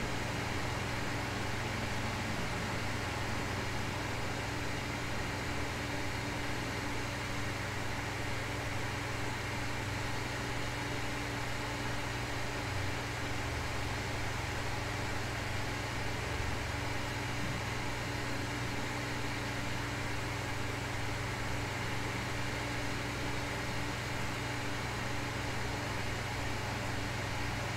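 Steady white and pink noise hiss with a constant low hum underneath, unchanging throughout.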